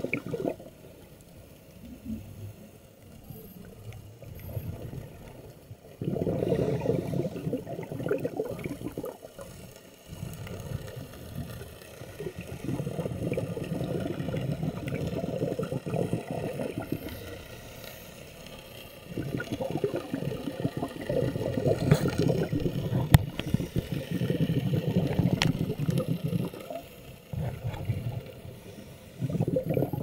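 Scuba diver's exhaled bubbles from a regulator, heard underwater as bubbling rushes lasting a few seconds each, broken by quieter pauses between breaths. A few sharp clicks come near the end.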